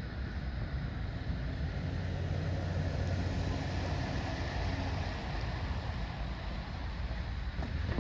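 Steady low rumble of road vehicle traffic, with a pickup truck drawing near toward the end.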